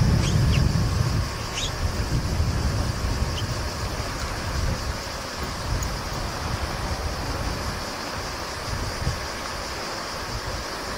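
Wind buffeting the microphone on the deck of a boat under way: a gusty low rumble, strongest in the first two seconds, over a steady high hiss.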